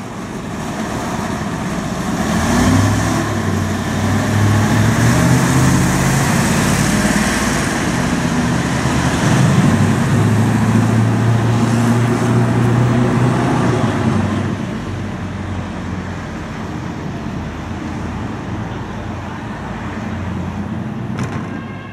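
Road traffic noise, with a vehicle engine pulling past that is loudest from about three to fourteen seconds in and rises slightly in pitch as it goes; no siren sounds.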